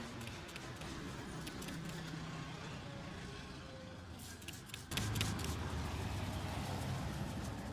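Low rumble of street traffic, with a few light clicks and taps; the sound jumps abruptly louder about five seconds in.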